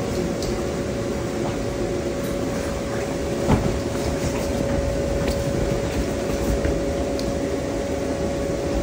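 Electric blower fan of an inflatable bounce house running steadily, a constant whirring rush with a steady hum. A single thump about three and a half seconds in.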